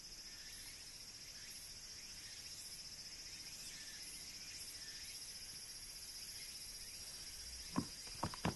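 Faint, steady, high-pitched chirring of insects, with a few short, sharp taps near the end.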